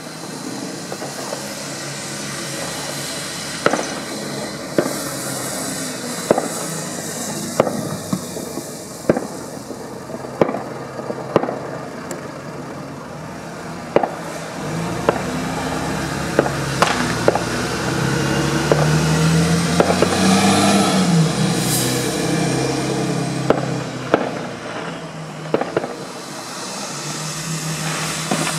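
Fireworks cracking and banging at irregular intervals over steady traffic noise. Midway through, a double-decker bus engine labours up the hill, building to its loudest about two-thirds of the way in, then fading.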